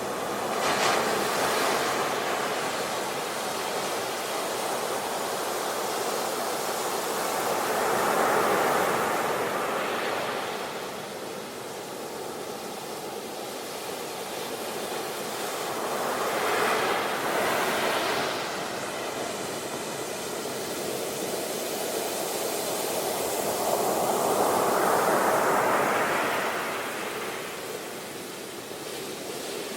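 Ocean waves breaking and washing up the shore, the surf swelling and ebbing in slow surges about every eight seconds.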